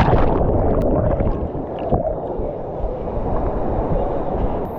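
Water heard from under the surface after a jump into a waterfall pool: a muffled, rushing rumble with gurgling bubbles.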